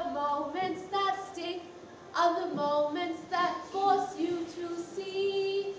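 A voice singing a melody in short phrases, ending on a long held note near the end.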